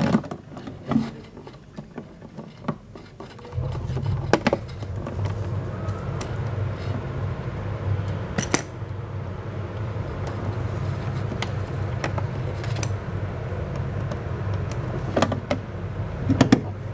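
Screwdriver driving a screw into a refrigerator's plastic control-board cover, with scattered sharp metallic clicks and taps. A steady low hum starts about three and a half seconds in.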